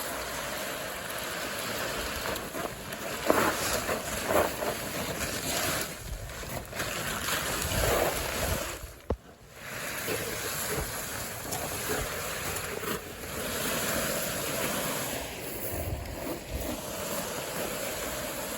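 A tarp loaded with tree and shrub trimmings dragged over the ground: a steady rough rustling, broken by a short pause about halfway through.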